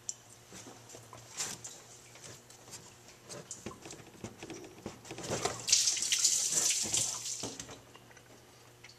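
Coolant dripping and splashing out as hoses are pulled off their fittings on the water pump and thermostat housing, with small clicks of the hoses and clamps being handled. About five seconds in, the splashing grows louder for about two seconds, then drops back to dripping.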